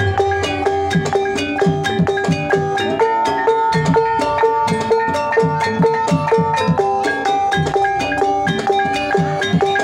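Javanese Banyumasan gamelan playing a tayub piece: bronze kettle gongs and metallophones struck in a steady, dense pattern with ringing notes, over kendang hand-drum strokes whose low notes bend in pitch.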